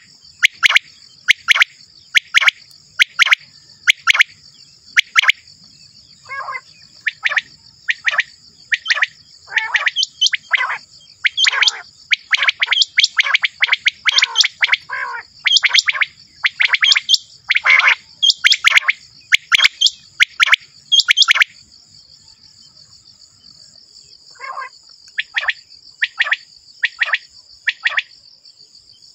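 Quail calling over and over: short, sharply falling notes, often two or three close together, with a brief pause near the end. A steady high-pitched buzz runs underneath and stops about three quarters of the way through.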